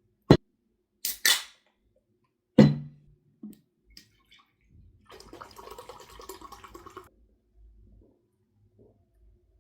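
Household handling sounds: a sharp click, two short hissing bursts, and a hard knock with a brief low ring. These are followed by about two seconds of a soft, noisy sound.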